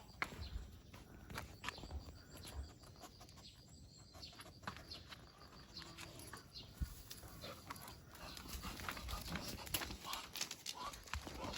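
An English setter on the lead out walking: irregular footsteps, scuffs and clicks of the dog and walker on the move, with the dog's hard breathing.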